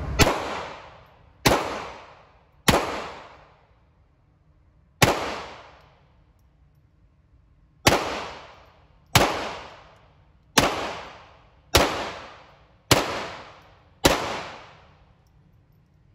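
Ruger Mark IV .22 LR semi-automatic pistol firing ten single shots at an uneven pace, one to three seconds apart, each crack followed by a short echoing tail.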